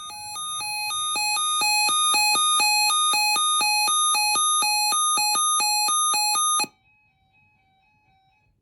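Weather radio's alert alarm: a rapid alternating two-tone electronic beeping that swells louder over the first two seconds, holds, then cuts off suddenly about six and a half seconds in. It signals an incoming weather alert, here ahead of a severe thunderstorm watch.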